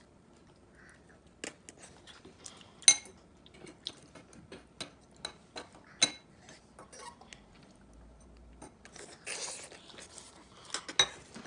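A metal fork clinking and scraping against ceramic bowls while udon noodles are eaten: irregular sharp clinks, the loudest about three and six seconds in, with a short slurp of noodles around nine seconds in.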